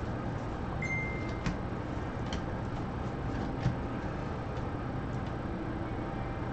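Baseball cards being flipped through by hand, giving faint ticks and slaps of card edges over a steady background hum. A brief high beep-like tone sounds about a second in.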